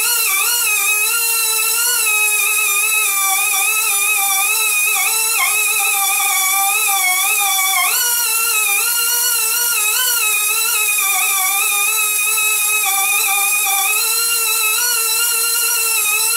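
Micro air die grinder with a felt polishing wheel running against the end of a metal rod: a high, steady whine that wavers in pitch as the wheel is pressed to the work, dipping briefly under load about five and eight seconds in.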